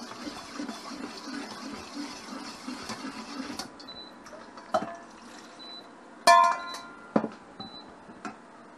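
Kitchen sounds: a steady rushing noise that stops about three and a half seconds in, then a few sharp clinks of dishes. The loudest is a ringing clink just after six seconds.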